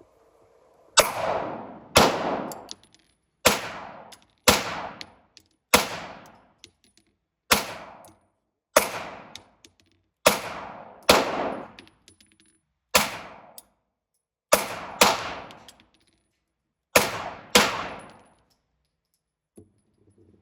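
Single gunshots fired one at a time, about fourteen in all, spaced roughly one to two seconds apart with a few quicker pairs. Each shot rings out with an echoing tail.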